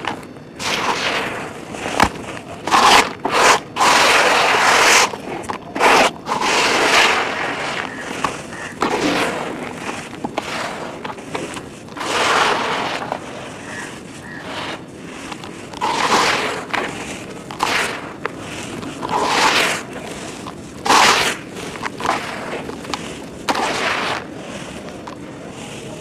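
Hands crushing and crumbling dry red dirt and sandy chunks in a tub: irregular bursts of gritty crunching as the crumbs fall back onto the pile.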